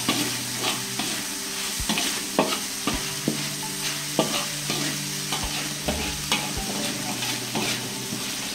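A spatula scraping and stirring across a wok, in irregular strokes about once or twice a second, while ground chili spice paste sizzles steadily in oil over medium heat.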